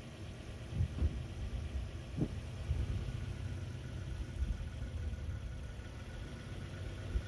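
Nissan Frontier pickup's V6 engine idling and pulling away slowly with a small camper trailer in tow, a steady low rumble with a few brief low thumps.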